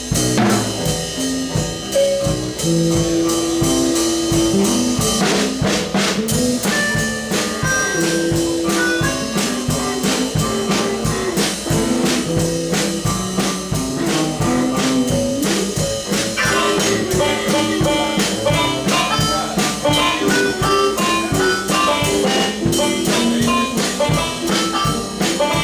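Band playing an improvised jazzy rock instrumental, with drum kit and horn-like lead lines over a steady beat.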